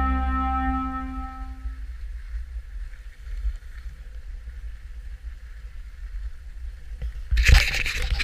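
Background music fades out over the first two seconds, leaving the low rumble of wind on an action camera as a skier glides over snow. Near the end, loud bursts of rushing, scraping noise come in as the skis slide and scrape across the snow.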